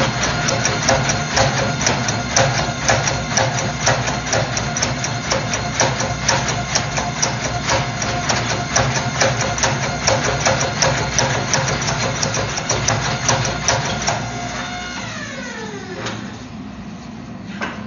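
An electric shop machine runs with a steady whine and rapid, even ticking, about four to five ticks a second. About fourteen seconds in it is switched off and winds down, its pitch falling as the sound fades.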